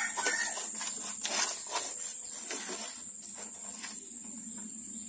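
Rustling and light clicks of brown cardboard being folded and pressed around a potted plant, over a steady high-pitched insect drone.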